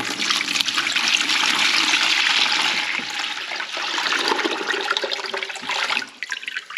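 Water pouring from a 5-litre plastic canister into a plastic bucket, a steady splashing stream that stops about six seconds in.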